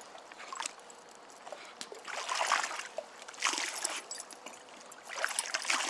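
Soft splashing and lapping of river water stirred by dogs paddling, in a few brief swells with small drips and ticks between.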